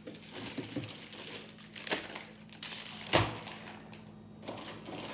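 Plastic food packaging rustling and items being set down on fridge shelves, with a sharp knock about two seconds in and a louder thud about a second later.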